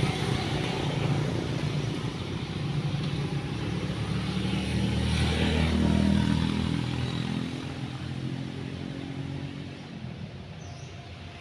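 A motor vehicle engine running, loudest around the middle and then fading away over the last few seconds.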